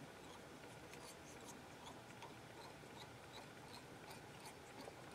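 Near silence, with faint soft ticking and rubbing of thread being wound around a fishing hook held in a vise while tying a caterpillar lure.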